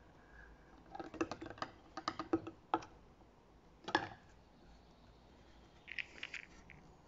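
Plastic clicks and knocks of a diesel-treatment bottle and its nozzle against the car's fuel filler neck as the bottle is emptied and handled: a quick cluster of taps between about one and three seconds in, one louder knock at about four seconds, and a few short, higher ticks near the end.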